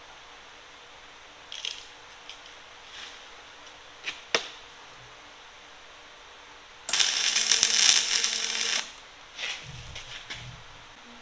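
Dual-shield MIG welder running an arc once for about two seconds, about seven seconds in: a short tack weld fitting a new flight onto the reamer shaft. A few light metal clicks come before it, and some dull low knocks follow.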